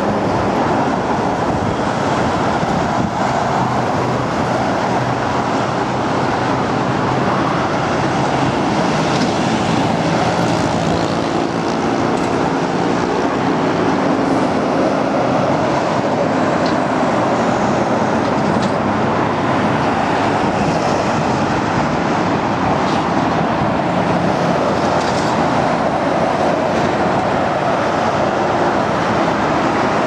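Steady heavy expressway traffic: trucks and cars passing with continuous tyre and engine noise, with a passing truck's engine note shifting in pitch around the middle.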